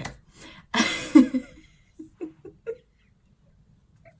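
A woman giggling: a breathy burst of laughter about a second in, followed by four short chuckles.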